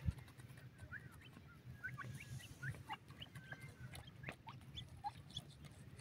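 Young grey francolins (teetar) giving many short, faint chirps and peeps while they forage, scattered through the whole stretch. A sharp knock right at the start and a low rumbling noise lie underneath.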